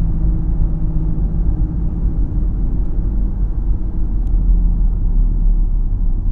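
Steady low hum and road rumble inside the cabin of a 2012 Ford Fusion SEL cruising at about 50 to 55 mph. The hum, which grows louder around these speeds, is the noise the owner is trying to trace.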